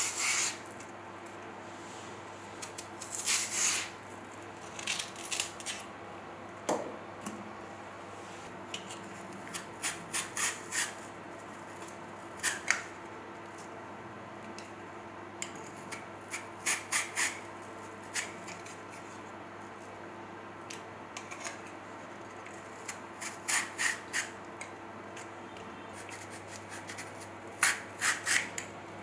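A knife and then a hand slicer scraping and shaving a raw green banana, in short scraping strokes that often come in quick runs of two to four. A faint steady hum lies beneath.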